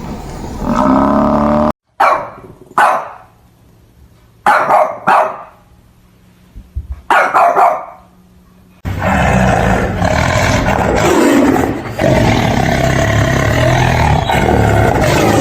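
A dog barking: sharp single barks and quick pairs, a second or two apart. A dense, rough, continuous sound follows for the last six seconds or so, after a pitched call that cuts off at the start.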